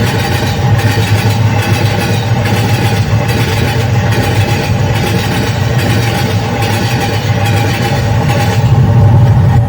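Indian Railways train running along the track: a steady rumble with the rhythmic clickety-clack of its wheels passing over rail joints, about once every three quarters of a second.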